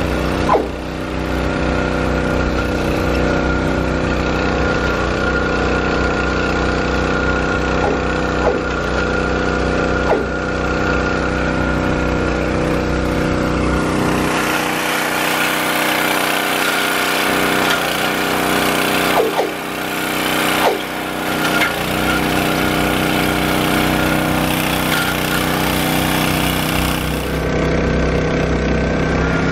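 A trackside engine running steadily at one constant speed, with a few short knocks. From about halfway to near the end a loud, even hiss covers it.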